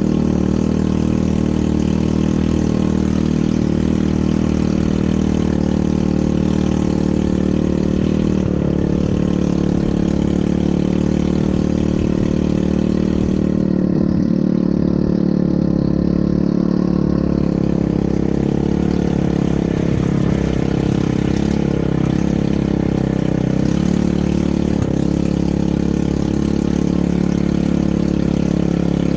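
ATV engine running steadily while riding, its pitch shifting slightly a few times.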